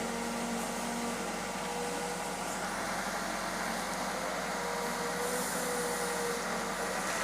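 Case backhoe loader's diesel engine running steadily, with a steady whine over the engine noise.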